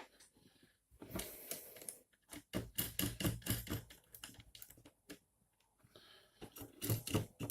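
Nuts being tightened onto the threaded rods of an acrylic 3D-printer frame: a quick, irregular run of small clicks and taps of metal parts and tools against the frame.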